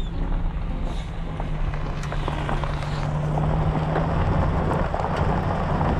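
A vehicle driving on a gravel road, heard from inside the cab: a steady engine hum under the crunch and scattered clicks of gravel under the tyres, a little louder from about halfway.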